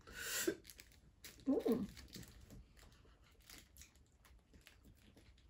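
Crinkling of a foil snack wrapper as a brownie is handled in its packet, a crackle at the start and then light rustles and small clicks, with a short vocal hum about a second and a half in.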